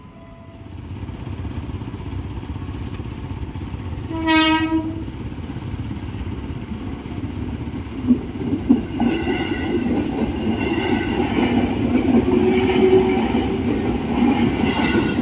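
A KRL commuter electric train approaches a level crossing and sounds one short horn blast about four seconds in. Its rumble then builds as it passes, with wheels clacking over the rail joints from about eight seconds in.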